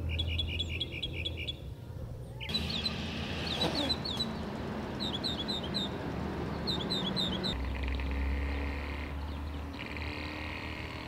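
Birds chirping in repeated quick groups of three or four short high notes, over low outdoor background noise; the background changes abruptly twice, and the chirping gives way to a steady low hum near the end.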